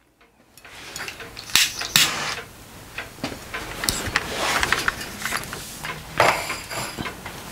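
Irregular knocks, clicks and scraping of things being handled, with louder clatters about one and a half, two and six seconds in.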